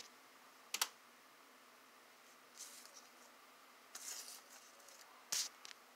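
Faint handling noise: a sharp double click about a second in, a few soft short rustles, and another sharp click near the end.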